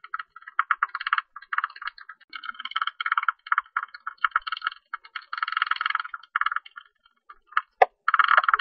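Greater tube-nosed bat calling: rapid buzzy, clicking chatter in bursts of about a second, with short gaps between them. A single sharp click comes near the end.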